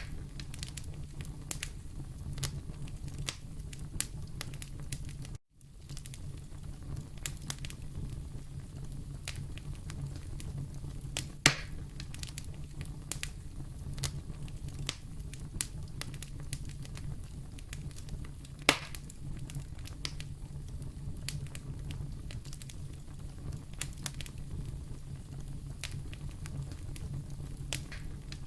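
Wood fire burning in a fireplace: a steady low rumble with frequent small crackles and two louder pops, one near the middle and one about two-thirds through. A split-second gap cuts the sound about five seconds in.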